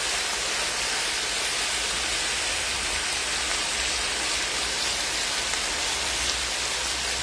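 Seasoned chicken browning in a pot, sizzling steadily in hot oil.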